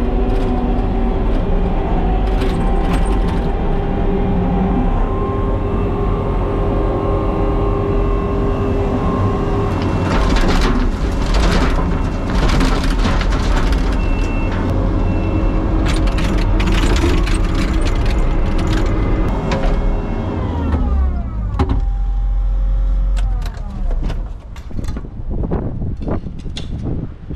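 Heavy machine or truck engine running steadily with a whine, and a run of clanks and knocks in the middle; about three quarters of the way through the engine winds down and the sound drops, leaving scattered knocks.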